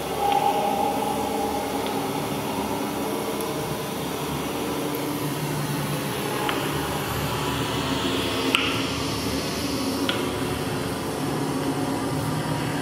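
Electronic drone music: a steady, dense hum of layered low tones under a noisy hiss, with a few faint clicks and a brief hissing swell about eight seconds in.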